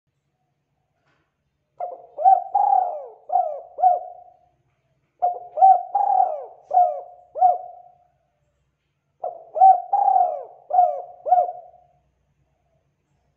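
Spotted dove cooing: three phrases of about five low, mellow coos each, a second or so apart.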